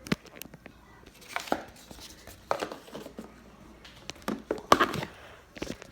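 Takeout food container being handled slowly, its lid worked at with scattered sharp clicks and crinkling rustles, the loudest about five seconds in.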